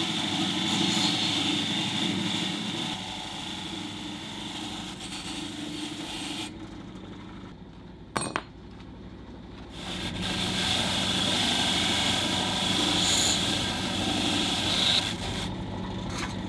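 Power wire brush (a motor-driven wire wheel) running and scouring freshly forged steel hooks to clean off the forge scale. The brushing drops away for a few seconds in the middle, with a single metallic clink about eight seconds in, then picks up again.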